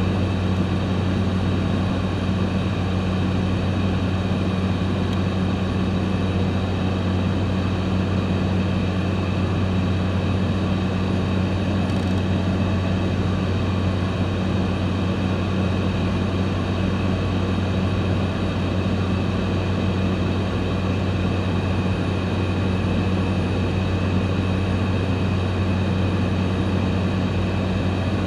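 Cabin drone of a small propeller plane in level cruise: a steady low hum from the engine and propeller over rushing air noise, unchanging throughout.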